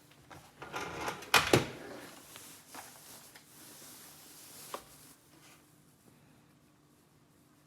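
Handling of a toy gun set's packaging: rustling with two loud sharp clicks about a second and a half in, one more click near five seconds, then it goes quiet.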